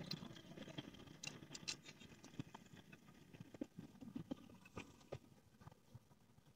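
Faint, scattered clicks and light scrapes of small metal parts handled by hand while a loader's engine is being repaired.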